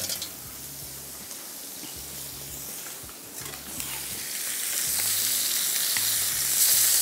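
Marinated chicken pieces sizzling in a shallow layer of hot oil in a frying pan. The sizzle grows louder about four seconds in, and near the end tongs move the pieces in the pan.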